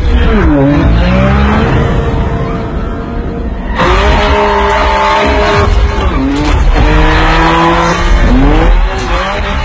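A BMW car's engine revving hard and held at high revs, its pitch dropping and climbing again about three times, with tyre squeal from skidding.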